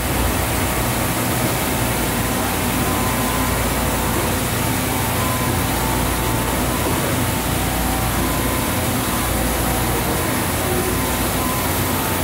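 Steady hum and hiss of industrial machinery running at idle, a low even drone with a faint high whine and no cutting, knocks or changes.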